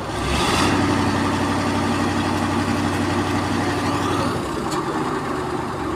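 Heavy diesel engine running with a steady low hum; it grows louder about half a second in, holds, and settles back to a lower level about four and a half seconds in.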